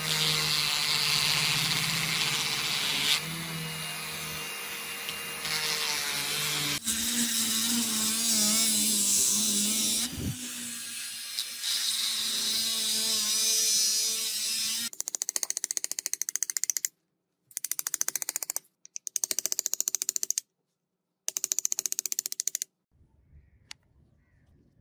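Handheld rotary tool running at high speed with a small cutter bit, grinding a recess into a wooden handle through paper tape. Partway through the sound turns into a rapid ticking chatter that cuts in and out, then stops shortly before the end.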